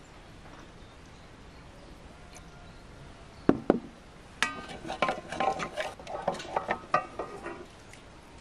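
Two sharp knocks, then about three seconds of a wooden spoon beating eggs and corn oil in an enamel bowl, clattering quickly against the metal sides with a slight ring.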